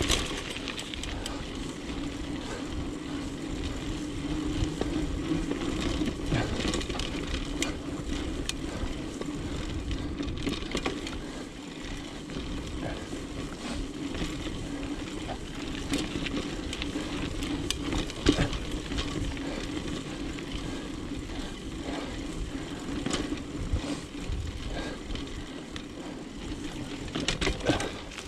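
Mountain bike riding a dirt singletrack: tyres rolling on the trail with a steady low hum, and frequent clicks and rattles from the bike over bumps, the sharpest knock about eighteen seconds in.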